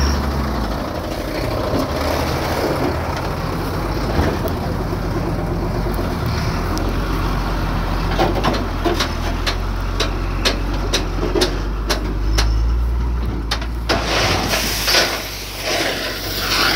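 Truck engine running close by with a steady low rumble. A string of sharp clicks, two or three a second, comes in about halfway through, and a hissing rush starts near the end.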